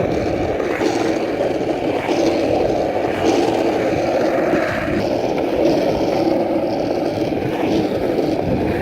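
Skateboard wheels rolling steadily over pavement, a continuous grinding rumble.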